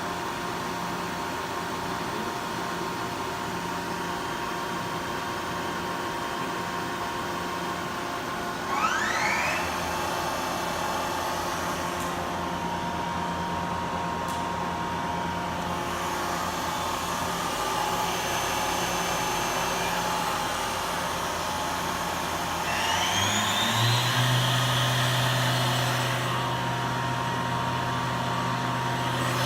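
Yama Seiki VMB-1020 CNC vertical machining center running a program, with a steady mechanical hum. A rising whine comes about 9 seconds in and again around 23 seconds as its motors speed up, followed by a steady low hum.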